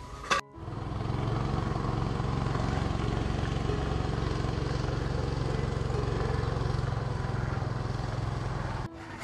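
A small wooden river boat's engine running steadily. It starts abruptly about half a second in and cuts off just before the end.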